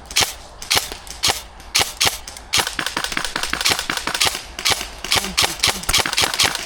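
Airsoft guns firing in semi-automatic: sharp snapping shots about twice a second, turning into a much faster, overlapping stream of shots from about two and a half seconds in.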